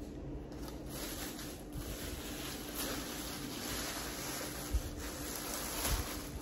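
Plastic bag rustling as takeaway tacos are unwrapped by hand, with a couple of soft knocks near the end, over a faint steady hum.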